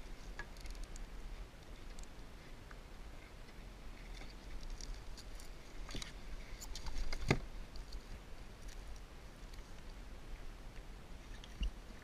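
Scattered light clicks, taps and scrapes of hands handling a lobster, a measuring gauge and a hoop net on a kayak, with one louder knock a little past seven seconds in.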